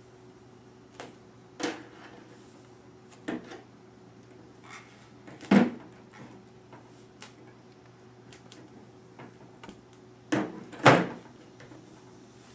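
Scattered knocks and clicks from an adjustable metal cane being handled on a plastic folding table while a vinyl decal is peeled back off it. The loudest are one knock about halfway and two close together near the end.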